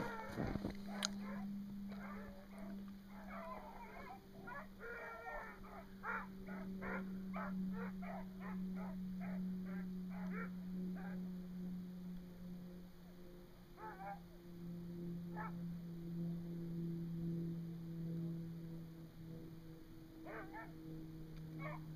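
A pack of hounds baying in a quick run of calls while running a deer they have just jumped, then only a few scattered bays. A steady low hum runs underneath.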